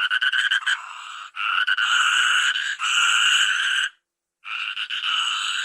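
Toucan calling: long, harsh, pulsing calls with little pause between them, quieter for a moment about a second in and cut by an abrupt silence about four seconds in.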